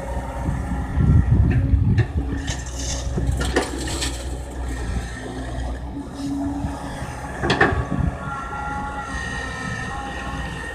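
Kobelco excavator running under load, its diesel engine rumbling steadily with a higher hydraulic whine, and a few sharp metallic clanks scattered through.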